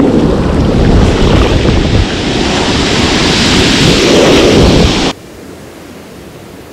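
Beach surf washing in the shallows, with wind buffeting the microphone. About five seconds in it cuts off abruptly to a much quieter, steady hiss of surf.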